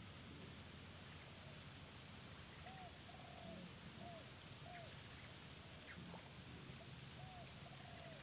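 Faint swamp ambience: a steady high-pitched buzz, and an animal calling in short rise-and-fall notes, a run of about five notes a few seconds in and another run starting near the end.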